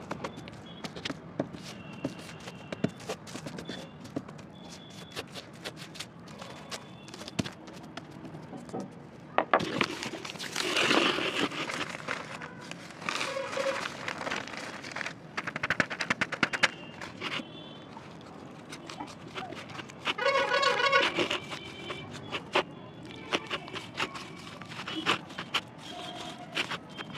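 Lumps of dry red clay crushed with a round stone on newspaper and crumbled by hand: scattered knocks, crunches and paper rustling, densest around ten seconds in. A short pitched sound comes about twenty seconds in.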